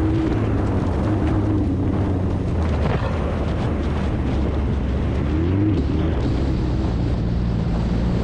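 Off-road race truck engine running hard over a steady rush of noise, its pitch climbing briefly about five and a half seconds in.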